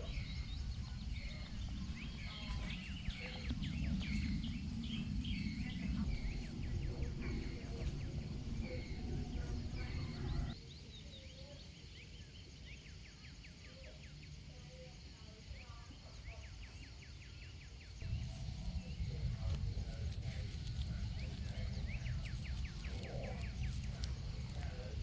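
Forest ambience: birds chirping over a steady high insect drone, with a low rumble underneath that drops away for several seconds in the middle.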